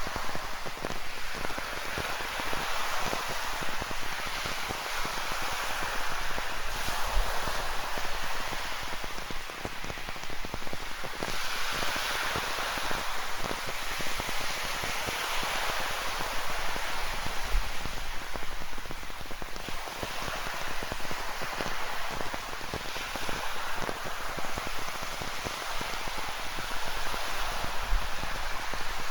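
Steady rain pattering, mixed with ocean surf that swells and eases over several seconds.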